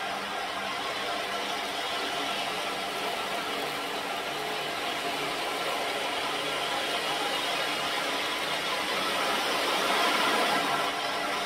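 Ocean drum being tilted so that the beads inside roll across the drumhead in a continuous surf-like wash. The wash swells louder near the end.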